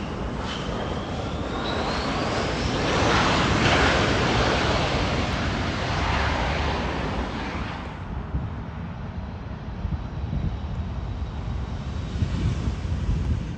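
Turbofan engines of a Delta Connection Embraer regional jet on the runway, a whine rising in pitch over the first two seconds and the noise loudest about three to four seconds in. After an abrupt change about eight seconds in, a duller, lower jet rumble from a Southwest Boeing 737 on the runway.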